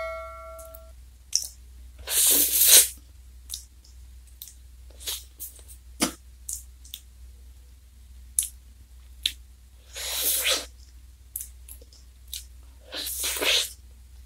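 Close-miked mouth sounds of eating an ice cream in a wafer cone: soft wet clicks and smacks, with three longer slurps about two, ten and thirteen seconds in. A ringing tone fades out in the first second.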